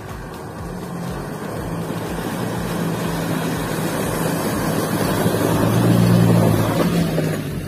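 Double-cab pickup truck fording a shallow rocky river: its engine running and water splashing around the wheels over the rush of the river. The sound grows louder as the truck comes close, loudest about six seconds in, then eases off.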